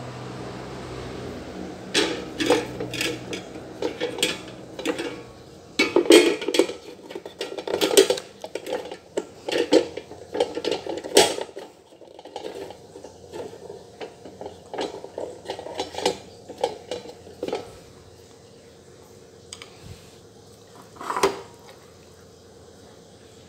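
Hard plastic clattering and knocking as the rack insert is set and pressed into an air fryer basket: a long run of irregular clicks and knocks, then one more knock near the end.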